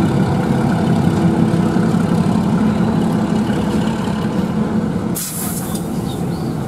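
Train's diesel engine running steadily with a low rumble, broken a little after five seconds in by a sudden short burst of hissing air, like an air-brake release, that dies away within a second.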